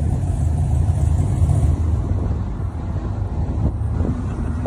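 Cadillac CTS-V's V8 engine running at low revs with a deep, steady rumble as the car sits after donuts.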